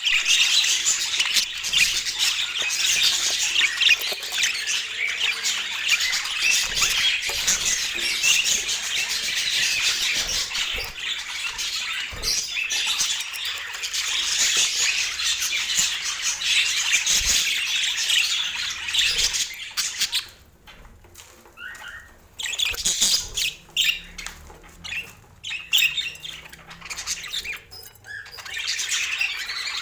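Pet budgerigars chattering and squawking in a dense, continuous high chatter. About two-thirds of the way through it thins to scattered separate calls, then picks up again near the end.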